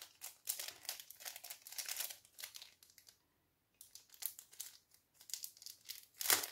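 Clear plastic packet crinkling in the hands as a sheet of adhesive pearl embellishments is handled, in quick, dry crackles with a pause of about a second midway.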